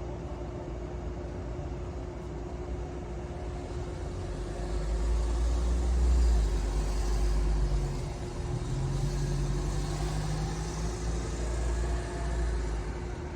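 Convenience-store ATM making a low mechanical rumble over a steady hum. The rumble swells about five seconds in and eases off near the end, with no one using the machine, which is why it is called haunted.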